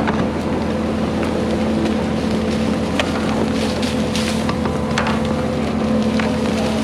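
Engine of the heavy machine pulling a water line plow, running steadily under load as the plow cuts through the ground, with a few scattered sharp clicks and snaps over the drone.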